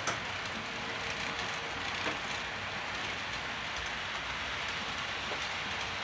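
HO-scale model trains running on the layout's track: a steady rolling hiss with a couple of faint clicks, one just after the start and one about two seconds in.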